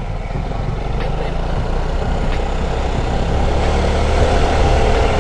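Vespa Sprint 150 scooter's single-cylinder four-stroke engine running under way, mixed with road and wind noise, getting gradually louder.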